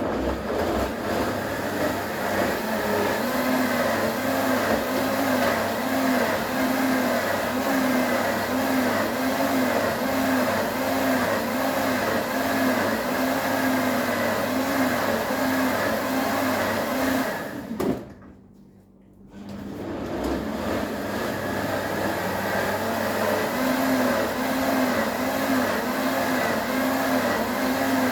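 Blender motor running as it blends frozen fruit, ice cubes and orange juice into a smoothie. It stops abruptly about 18 seconds in, then starts again about a second and a half later and builds back up to full speed.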